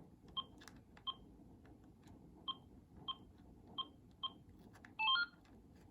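Cordless phone handset keypad beeps: six short, identical key-press tones spread out as its menu is navigated to set the ringtone. About five seconds in comes a brief run of stepped tones, a confirmation chime or ringtone preview.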